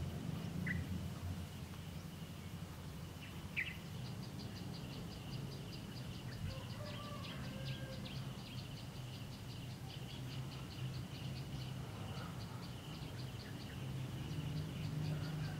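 Outdoor ambience of insects: a steady high trill, joined about four seconds in by a rhythmic chirping at about four a second, with a few short bird chirps and a low hum underneath.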